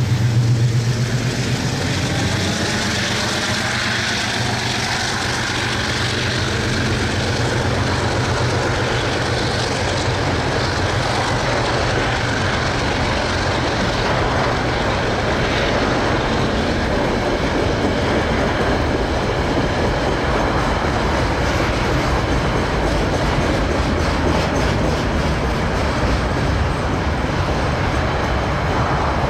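A diesel-electric freight locomotive passes close by, loudest in the first second or two, its engine note falling in pitch as it goes past. It is followed by a long string of freight wagons rolling by with a steady wheel rumble and clickety-clack.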